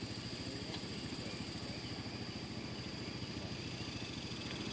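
A vehicle engine idling with a steady low rumble, under a continuous high-pitched buzz of insects.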